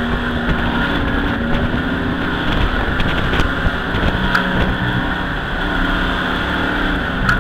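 Race truck's engine running steadily at low speed, heard from inside the cockpit, its note shifting slightly in pitch.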